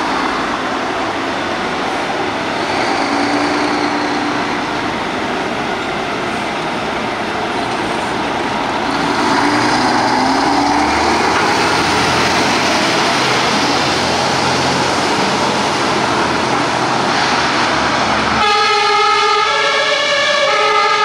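A Scania fire engine's diesel engine running with road noise as it pulls out, with faint rising and falling tones in the noise. About 18 seconds in, its two-tone siren starts, alternating steadily between a high and a low pitch.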